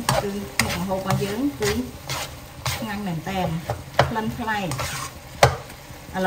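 Spatula stirring a pork and mushroom stir-fry in a non-stick wok, sizzling as it cooks, with repeated knocks of the spatula against the pan, the sharpest about five seconds in.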